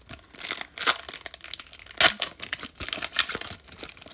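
Foil trading-card pack wrapper being torn open and crinkled, an irregular run of crackles with the loudest about two seconds in.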